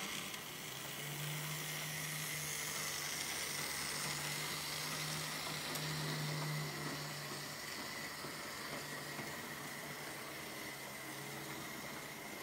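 Märklin H0 model trains running on the track: a low motor hum with a thin steady whine over an even running hiss. The hum is strongest in the first half, while a freight train passes close in front, then eases off.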